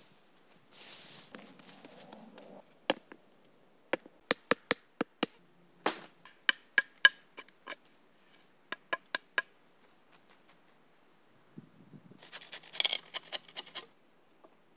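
Rustling brush, then a run of about twenty sharp chopping blows of a hatchet on green wooden poles, irregular and sometimes in quick pairs. Near the end comes a short burst of crackling and rustling, as of dry branches being handled.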